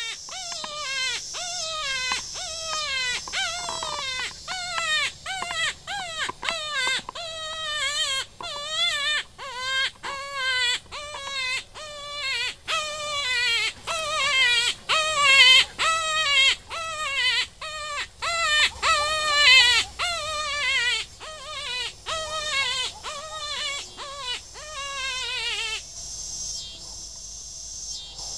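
Hand-blown Reese Outdoors predator call giving a long run of wavering, high-pitched distress cries, about two a second, that stops near the end.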